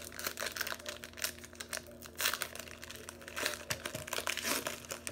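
Plastic wrapper of a trading-card pack crinkling in irregular crackles as it is worked open by hand, loudest about two seconds in and again near the end.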